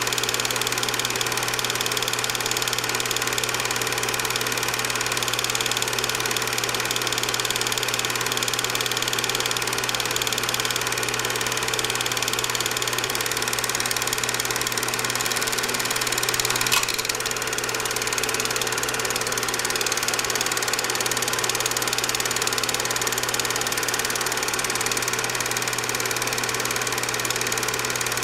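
Film projector's motor running steadily, a constant whirring hum over hiss, with a single sharp click about 17 seconds in.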